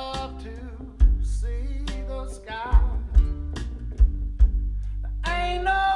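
Slow country-blues song played back through a pair of Spatial Audio M3 Sapphire open-baffle loudspeakers and picked up in the room: deep bass, guitar notes and sharp drum hits, with a male voice singing again near the end.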